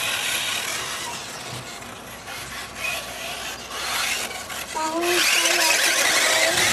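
Brushless electric RC buggy driving and cornering: a raspy, hissing drive and tyre noise that falls back about two seconds in and grows louder from about five seconds in.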